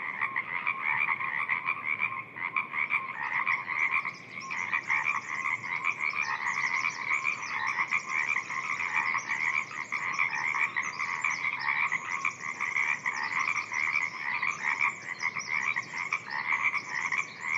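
A dense chorus of many frogs calling at once, rapid pulsed croaks overlapping without a break, with a higher, faster trilling layered over them from about three seconds in.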